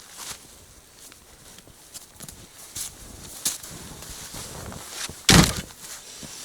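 Footsteps and rustling while dry firewood is gathered and handled in the snow, with scattered small cracks and one loud thump about five seconds in.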